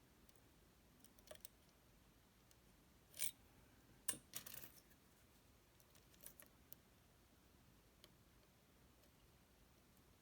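Faint metallic clicks and short scrapes from lock-picking tools and a Lockman Megacross SP lock being handled, in scattered groups with a cluster of clicks about four seconds in, over near silence.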